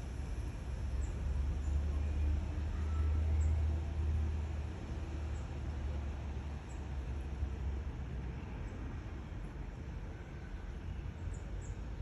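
A low, steady rumble, strongest in the first few seconds, with faint short high-pitched bird chirps every second or two.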